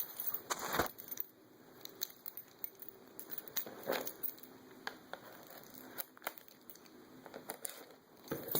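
Plastic shrink wrap on a Blu-ray steelbook being slit and pulled open with a key: crinkling and scraping with scattered clicks, and louder rustles about a second in and again about four seconds in.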